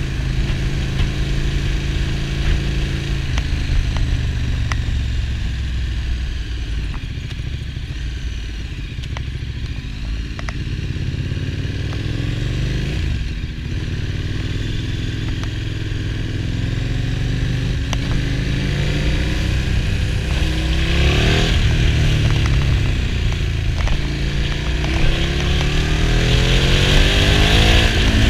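KTM 1290 Super Duke R's V-twin engine heard from the rider's seat. The revs fall before the middle with a brief quieter dip about halfway, then rise again in pulls through the second half. Wind rush grows near the end.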